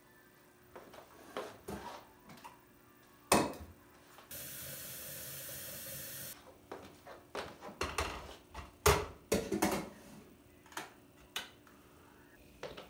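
Kitchen work sounds: dishes and utensils knocking and clinking, with one sharp knock about three seconds in, a steady hiss for about two seconds after it, and a run of knocks and clatter near the middle.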